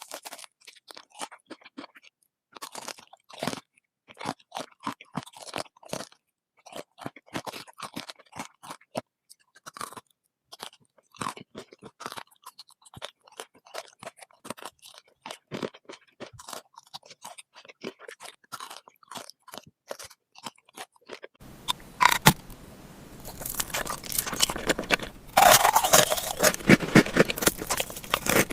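Close-miked chewing of crunchy food: quick, irregular crisp crunches with silent gaps between them. About 21 seconds in, the crunching becomes louder and denser over a steady background hiss.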